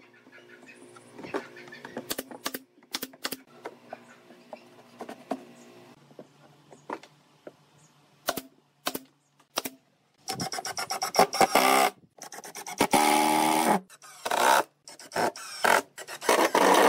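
Pneumatic brad nailer firing nails into pine boards, a series of single sharp shots. From about ten seconds in, a cordless impact driver runs in four or five loud bursts, driving screws into the wood.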